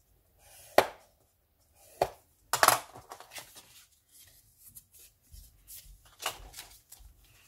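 Bone folder and scrapbook paper being handled on a plastic scoring board: a sharp tap or click about a second in and another at two seconds, then a cluster of clicks and paper rustling as the strip is lifted and laid back on the board, with softer handling noises after.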